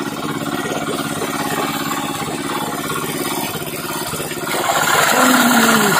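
Small engine running steadily at an even speed, getting louder about four and a half seconds in.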